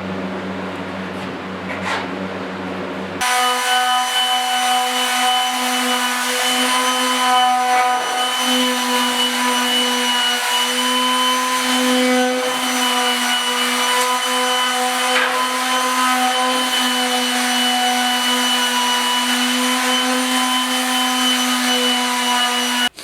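Power sander running steadily while sanding a steel running board. About three seconds in, a lower hum gives way abruptly to a steady, constant-pitch whine, which stops suddenly at the end.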